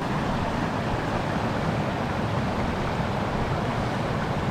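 A moorland stream rushing steadily over a small rocky cascade.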